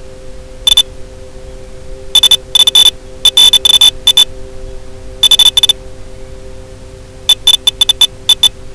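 High electronic beeping in irregular short bursts, ending in a quick run of pips near the end, over a steady low two-tone electronic hum.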